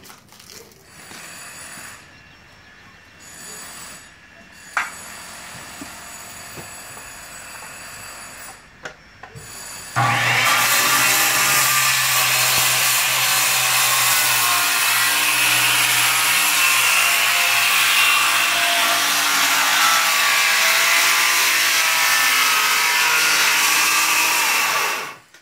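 Electric power saw cutting into a wooden door header: a loud, steady cutting sound over a motor hum that starts abruptly about ten seconds in and stops suddenly near the end. Before it there are only quieter knocks and handling sounds.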